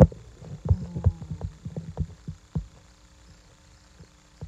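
A quick run of dull low thumps over the first two and a half seconds or so, then a couple of soft clicks near the end.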